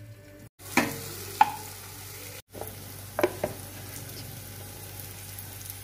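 Sliced onions, tomatoes and green chillies sizzling in oil in a nonstick kadai, with a few sharp scrapes and knocks of a spatula stirring them. The sound cuts out twice for a moment.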